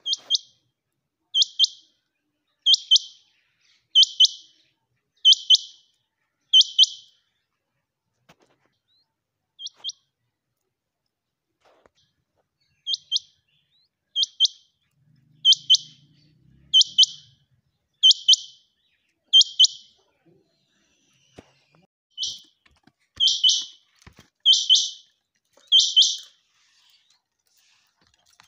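Quail (chinga batair) calling: short, high doubled notes repeated about once every 1.3 seconds, in three runs of four to six calls with pauses of a few seconds between them.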